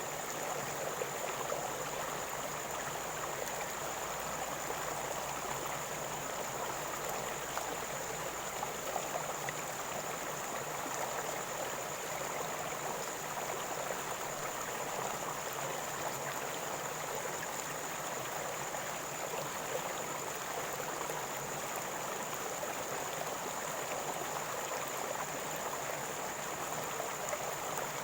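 River water flowing and gurgling steadily.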